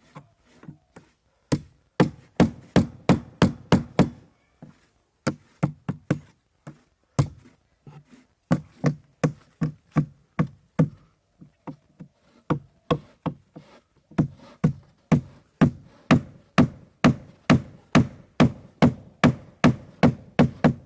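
Hammer blows on the wooden planking of a hand-built boat: sharp, steady knocks at about two to three a second, in several runs with short pauses between them.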